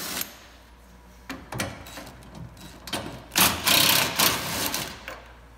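A DeWalt cordless power driver backing out a bolt from the bedside mounting. It gives one loud whirring run of about a second and a half near the end, with a few brief, quieter sounds before it.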